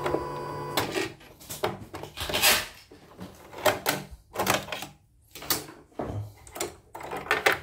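A steady hum cuts off about a second in, followed by a string of irregular plastic-and-metal clicks and knocks as the bobbin cover and bobbin-case area of a CNY portable embroidery machine are handled by hand.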